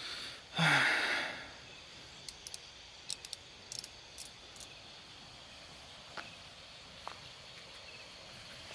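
Night insects such as crickets chirring steadily and faintly, with a short loud breathy hiss about a second in and scattered faint high ticks after it.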